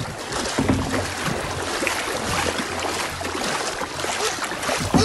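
Water splashing and lapping as a kayak paddle dips in and out beside the hull, with a sharp knock near the end.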